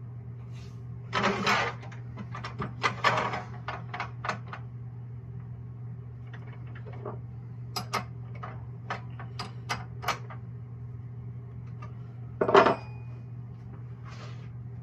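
Clicks and knocks of a wood lathe being set up by hand: a wooden blank is handled on the spindle and the metal tool rest is moved into place, in scattered clusters with one louder knock near the end. A steady low hum runs underneath.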